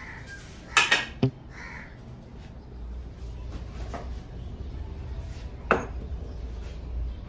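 Kitchen clatter of crockery and utensils: a few sharp clicks and knocks, a quick cluster of three about a second in and a louder knock near the end, from a pestle worked in a mortar with garlic cloves.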